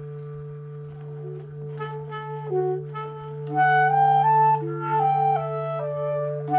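Clarinets and alto saxophone playing a concert-band piece together: a low note is held steady underneath while a melody of stepping notes comes in about two seconds in and grows louder about a second later.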